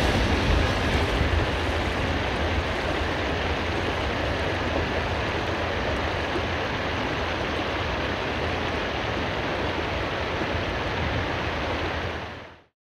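Steady rushing noise of wind and water on open sea, even throughout with no voices or music, cutting off suddenly near the end.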